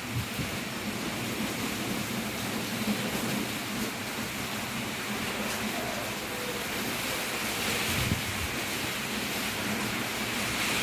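A steady rushing noise, like wind or heavy rain, with a faint low thump about eight seconds in.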